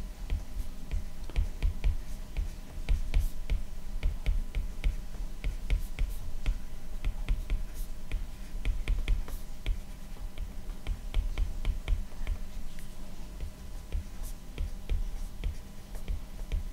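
Stylus tip clicking and tapping on a tablet's glass screen during handwriting, in quick irregular clicks, with dull low knocks throughout.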